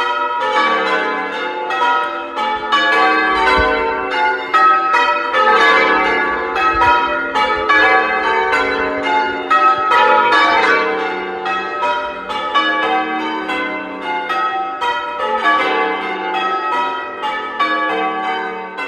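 A ring of eight church bells, cast by Taylors in 1871 and 1928, ringing changes: a steady stream of overlapping bell strikes following one another in quick, even succession.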